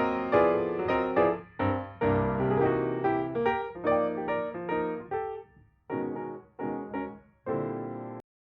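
Background piano music playing a run of struck notes and chords. Near the end it thins to separate chords with short pauses between them, then stops.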